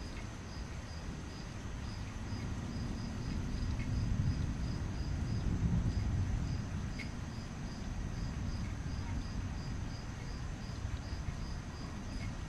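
Night insects chirping steadily: a regular high chirp about two to three times a second over a continuous high trill. A low rumble swells and fades in the middle.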